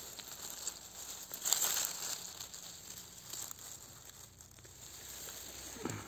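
Dry fallen leaves and grass rustling and crackling as a hand lifts a cut porcini mushroom from the forest floor, loudest about one and a half seconds in.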